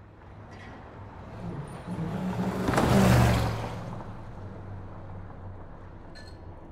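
A motor vehicle passing close by on the road, its engine and tyre noise swelling to a peak about three seconds in and then fading, over a steady low hum of traffic.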